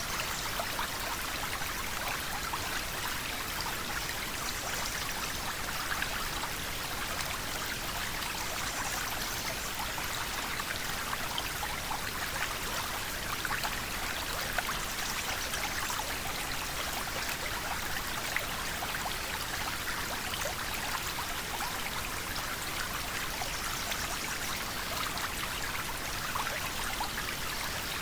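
River water flowing steadily, a continuous rushing with fine splashing and bubbling.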